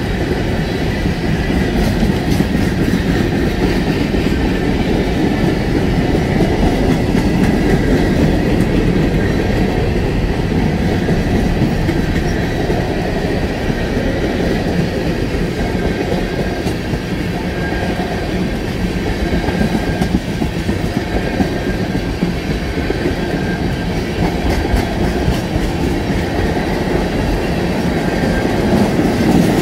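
Freight train cars rolling past, a steady rumble of steel wheels on the rails with repeated clicks as the wheels cross rail joints.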